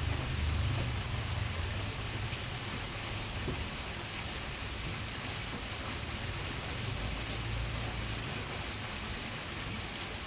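Steady hiss of water, like rain or a fast-flowing river, with bursts of low rumbling near the start and again about seven seconds in.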